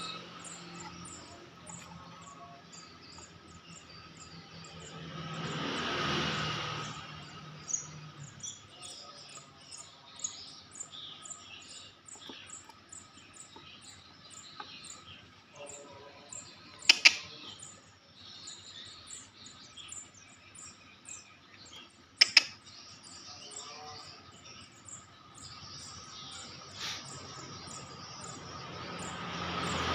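Nestling birds, which the keeper hopes are Javan bush larks, cheeping faintly now and then over a steady high-pitched ticking at about two a second. Two sharp double clicks, about five seconds apart, are the loudest sounds.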